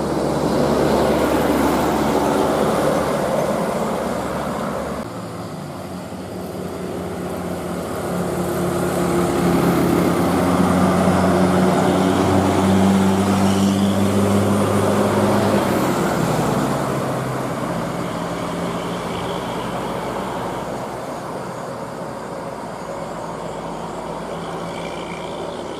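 Tour bus engines and road traffic: a steady low engine hum that swells as a heavy vehicle passes, loudest in the middle, then slowly fades.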